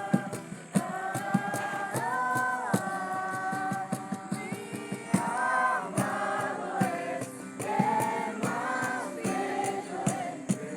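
Music: sung vocals holding long notes over a steady beat.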